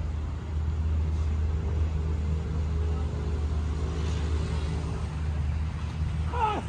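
Steady low rumble of a running vehicle, with a faint hum above it that drops away about five seconds in. A short falling voice-like sound comes near the end.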